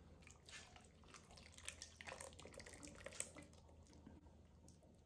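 Faint pouring of a thick cream and Parmesan sauce from a pan onto chicken in a slow cooker crock, with soft drips and splats.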